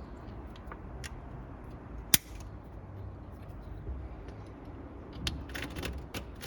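Light metallic clicks and taps of hand tools and distributor parts being handled, with one sharp click about two seconds in and a quick run of clicks near the end, over a low steady hum.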